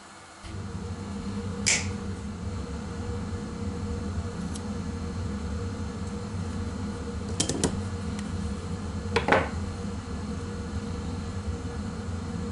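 A steady low mechanical hum starts suddenly about half a second in. Over it come a few sharp snips and clicks from hand tools, a leather punch plier and scissors, cutting a small piece of leather, with a quick run of snips past the middle and a louder one near the end.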